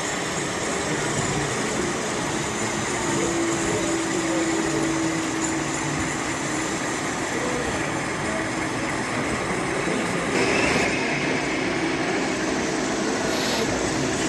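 Model train running on an exhibition layout over a steady background of hall noise. A faint steady tone sounds for a few seconds near the start.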